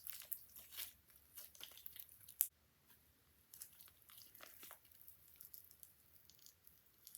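Store-bought Elmer's slime mixed with shaving foam being squeezed and stretched by hand, its sticky surface making quick, faint, irregular clicks and crackles, with one sharper snap about two and a half seconds in.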